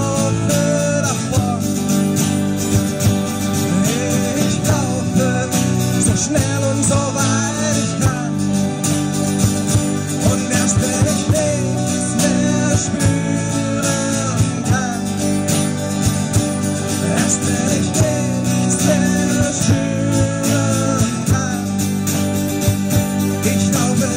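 Live rock band playing a song: electric guitar, bass guitar, acoustic guitar and drum kit, with a wavering lead melody over a steady beat.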